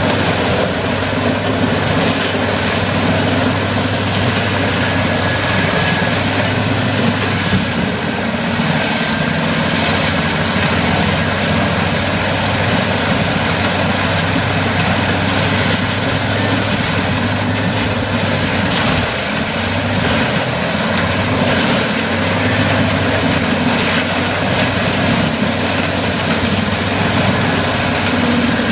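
Peterson 4300B drum wood chipper running steadily under load, a loud continuous engine drone with the dense rushing noise of wood being chipped.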